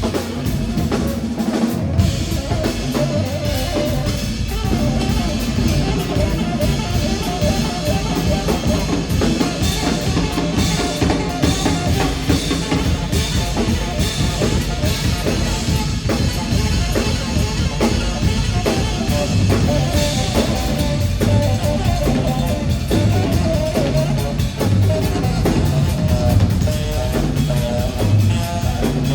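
Live rock band playing loudly: a busy drum kit with bass drum and rimshots under an electric guitar line, with no singing.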